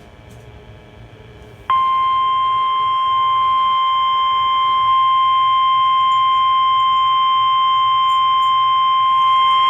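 NOAA Weather Radio warning alarm tone: a single steady, loud, high-pitched tone that switches on sharply about two seconds in and holds unbroken, the alert signal that comes before a warning message is read. Faint radio hiss comes before it.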